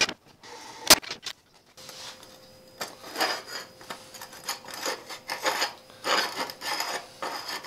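Two sharp knocks in the first second, then bent square steel tubing scraped and slid across a steel welding table in a series of rough rubbing strokes.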